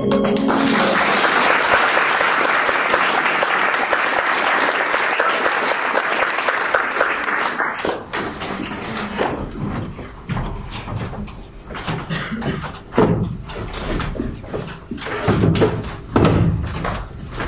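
Audience applauding for about eight seconds, then scattered knocks and thuds of boxes being carried and set down on a wooden stage floor, with footsteps.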